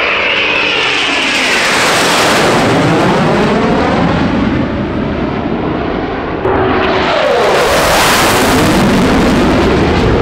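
Eurofighter Typhoon jets' twin EJ200 turbofans passing low at high speed, the jet noise swelling with a sweeping, phasing rush as the aircraft go by. About six and a half seconds in, the sound jumps suddenly into a second loud pass.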